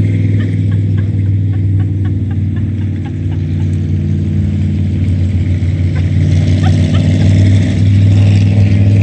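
A boat engine running steadily at low speed, a deep, even hum throughout. A few faint short chirps sound over it.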